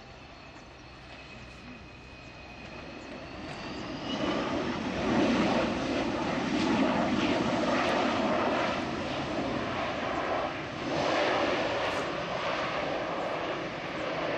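Boeing 737-200 Advanced's Pratt & Whitney JT8D turbofan engines spooling up: a whine rises in pitch, then about four seconds in it gives way to a loud, rough roar at takeoff power as the jet rolls down the runway.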